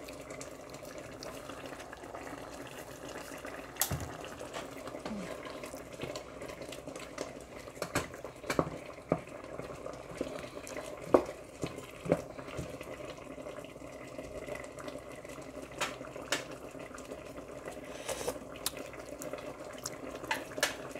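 Coconut-milk chicken curry bubbling at a boil in a pot, with scattered short clinks of a utensil against the pot.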